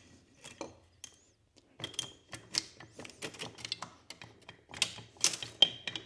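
Metal engine parts clicking and clinking as the Suzuki DR-Z400SM's cylinder is worked up off its studs and piston: a few isolated clicks, then from about two seconds in a quick, irregular run of sharp knocks, some with a brief metallic ring.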